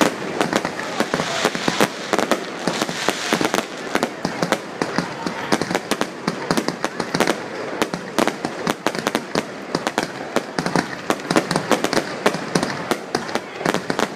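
A dense, continuous barrage of aerial fireworks: rapid overlapping bangs and crackling, many reports each second without a pause.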